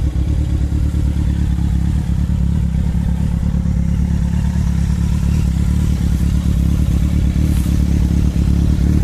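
Kawasaki Z1000 inline-four engine idling steadily in neutral through an aftermarket carbon-fibre silencer.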